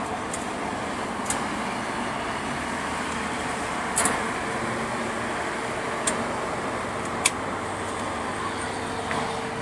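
Pliers and small metal parts clicking against a welded steel tube car frame while a hand brake is fitted: about five short, sharp clicks a second or two apart, the loudest about four seconds in, over steady background noise.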